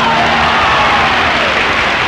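Live audience applauding and cheering loudly at the end of a song, with shouts rising above the clapping. The last held note of the accompaniment stops about half a second in.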